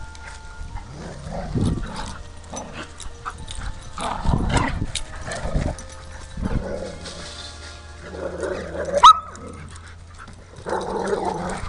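Dogs barking in short bouts, with a sharp high yelp about nine seconds in.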